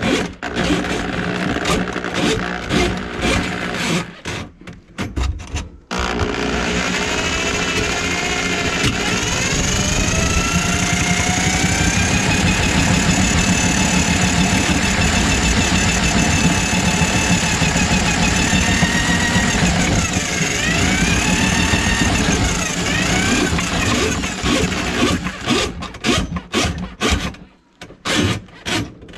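Electric drum drain auger running, its spinning cable working through a kitchen sink drain line plugged with grease. It starts and stops in short bursts at first, then runs steadily for about twenty seconds with a whine that slides up and down in pitch, and goes back to short on-off bursts near the end.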